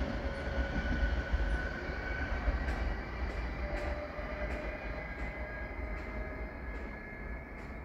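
Train running on the tracks: a low rumble with faint steady wheel-squeal tones, and light clicks about every half second in the second half, slowly fading.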